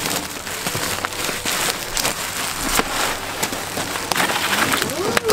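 Plastic bubble wrap and a cardboard box rustling and crinkling as a large bubble-wrapped panel is pulled out of the box, giving a dense crackle of many small clicks.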